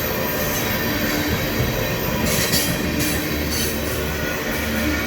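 Empty ethanol tank cars of a freight train rolling slowly past, with a steady rumble of wheels on rail. Brief high wheel squeals come through about two and a half and three and a half seconds in.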